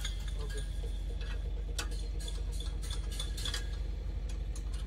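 Light, irregular metallic clicks and ticks from tools and wire being worked at a steel fence strain post, over a steady low rumble.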